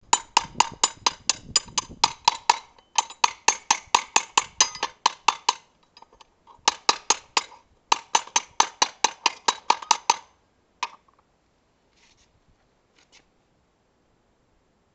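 Small hammer striking a steel horseshoe clamped in a bench vise: quick, ringing metal-on-metal taps, about five a second, in several runs with short pauses. The hammering stops about ten seconds in, with one last strike just after.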